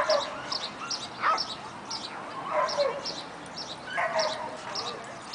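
Dog barking and whining: four loud yelping calls, each sliding down in pitch, about a second apart. Under them runs a steady patter of short high squeaks, about three a second.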